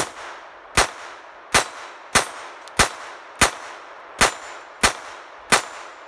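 Phoenix Arms HP22A .22 rimfire semi-automatic pocket pistol firing a steady string of about nine shots, roughly one every two-thirds of a second, each crack followed by a short echo. The pistol cycles every round without a stoppage.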